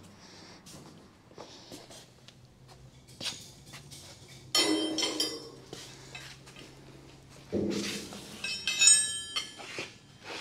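Steel tools and parts clinking and clanking in a machine shop, with a ringing metallic note after the strikes: a cluster of knocks about halfway through and a longer, louder run of clanks near the end.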